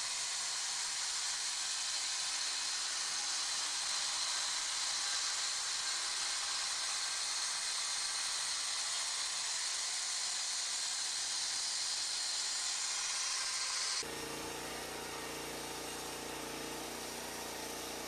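A band sawmill running with a steady, loud hiss of the blade. About fourteen seconds in it changes abruptly to a portable Norwood LumberMate LM29 band sawmill cutting a squared log, its gasoline engine giving a steady low hum under a lighter hiss.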